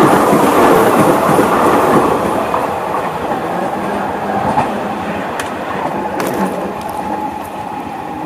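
Seibu 40000 series electric commuter train running on the rails, its wheels clattering over the track. The noise is loud at first and fades steadily as the train runs away, with a few sharp clicks in the middle.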